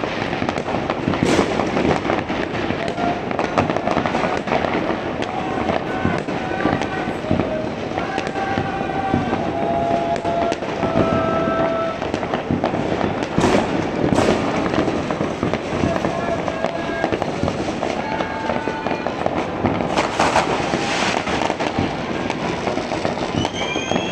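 Many New Year's Eve fireworks going off at once across a town: a dense, unbroken crackle of firecrackers and bursting rockets, with louder bangs about a second in, twice around the middle and again near the end. Thin whistling tones come and go through it.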